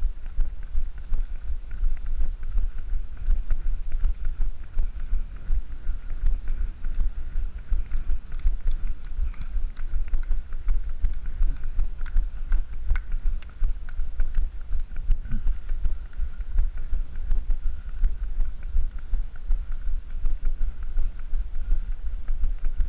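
Running strides jolting a body-worn camera: low thumps about three a second, with wind rumbling on the microphone.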